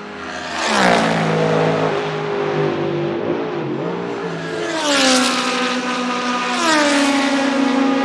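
Historic racing cars passing at full speed one after another: three pass-bys, about a second in, about five seconds in and just before seven seconds in, each engine note dropping in pitch as the car goes by.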